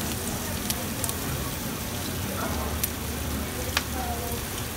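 Pork sisig sizzling on a hot cast-iron sizzling plate: a steady hiss with four sharp pops.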